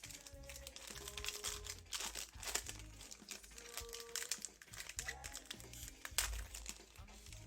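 Foil trading-card pack wrappers crinkling and cards being handled in short, irregular rustles. Background music with a repeating bass line plays underneath.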